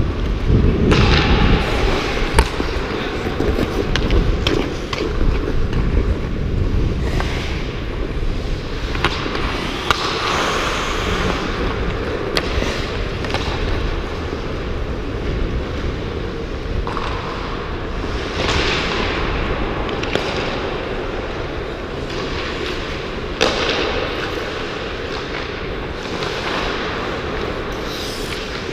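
Hockey skate blades scraping and carving on rink ice in repeated swells, with a few sharp clacks of sticks and puck. Heavy wind rumble on the microphone from the skater's own movement, strongest at the start.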